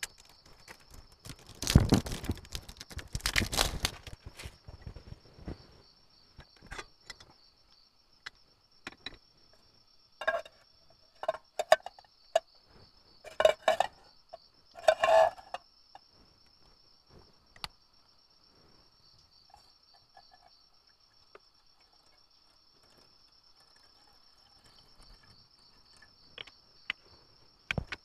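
Crickets chirping steadily and high-pitched throughout. Over it come intermittent rustling and clinking as small camp cookware is handled, loudest about two to four seconds in and again in a cluster of clinks between about ten and sixteen seconds.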